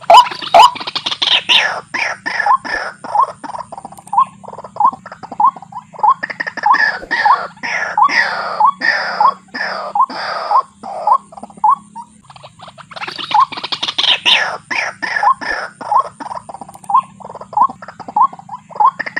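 White-breasted waterhens calling: a long run of repeated croaking notes, about three a second, in three bouts with short pauses between.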